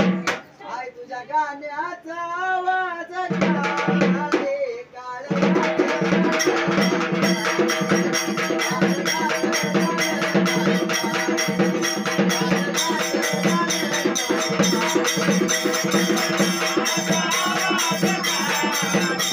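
Music: a lone wavering melody for about five seconds, then a full band comes in with drum and shaker-like rattling percussion at a steady beat.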